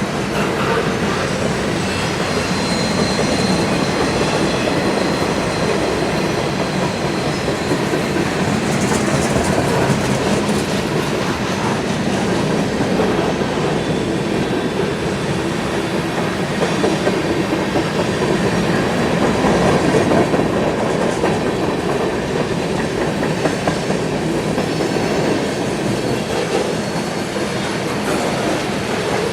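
CSX freight train rolling past, its steel wheels running steadily on the rails. A faint, thin, high squeal comes in about two to five seconds in.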